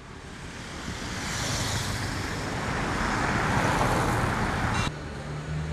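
Street traffic noise, swelling as a vehicle passes and loudest around three to four seconds in. About five seconds in it cuts abruptly to a steady low drone over quieter road noise.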